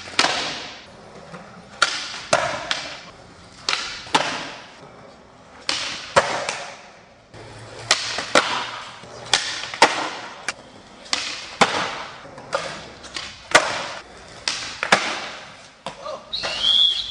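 Skateboard flat-ground tricks on smooth concrete: sharp tail pops and board landings again and again, each followed by the wheels rolling away. A short, high squeak near the end.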